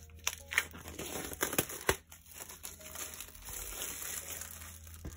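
Clear plastic shrink wrap crinkling and crackling as it is peeled off a CD album, with a few sharp crackles in the first two seconds.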